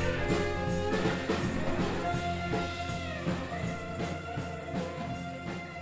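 Instrumental music led by guitar, with held notes over a steady low tone, gradually getting quieter.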